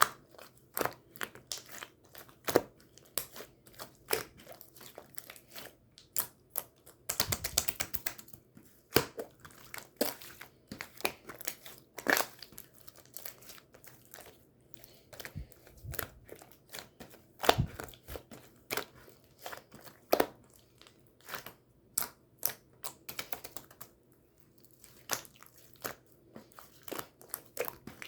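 Two-layer pink slime being squished and pressed by hand: irregular sticky pops and clicks, with a longer crackling squish about seven seconds in.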